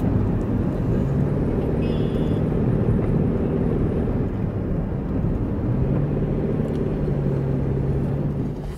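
Car driving on a wet road, heard from inside the cabin: a steady low rumble of engine and tyres, with an engine hum that comes up twice.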